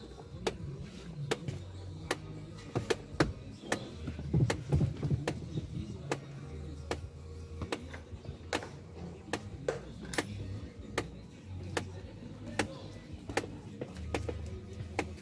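Failing heater-flap actuator motor in a BMW E90 dashboard making a repeated tac-tac clicking, roughly twice a second and unevenly spaced, over a low hum that starts and stops. It is the sign of a faulty flap motor, the fault that leaves only hot air coming from the vents.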